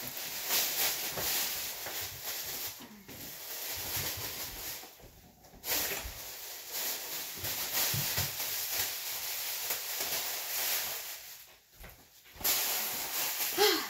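Plastic wrapping of a large rolled diamond-painting canvas rustling and crinkling as it is unrolled and handled, with short pauses about five seconds in and again near twelve seconds.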